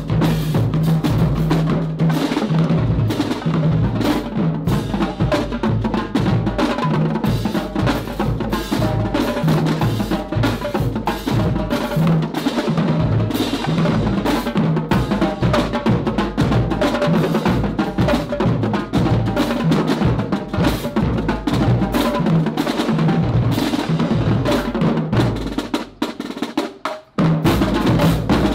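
Marching drumline of snare drums, multi-tenor drums, tuned bass drums and crash cymbals playing a fast percussion feature with rolls and rim clicks. It breaks off for about a second near the end, then comes back in.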